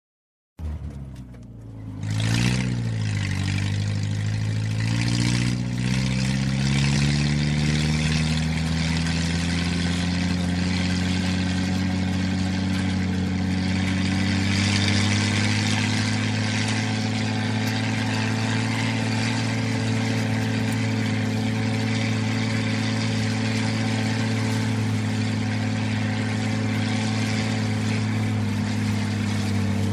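Old Jeep engine driving: it comes in abruptly, gives a quick rev about two seconds in, then climbs steadily in pitch over several seconds and settles into an even, steady running note at cruising speed.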